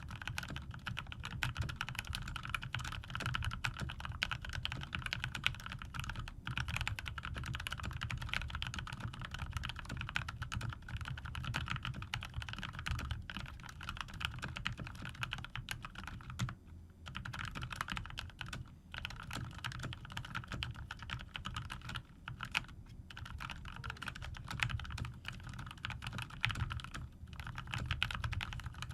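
Typing on a COX CK01 TKL mechanical keyboard with lubed GMTX red linear switches under PBT keycaps: a fast, continuous run of keystrokes, with a brief pause a little past halfway.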